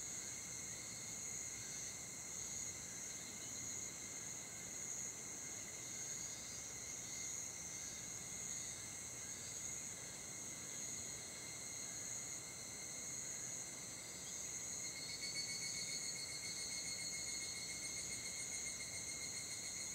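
Insects singing: a steady, high-pitched, layered trill that pulses slowly and evenly. About three quarters of the way in, a second, faster-pulsing insect song joins higher up.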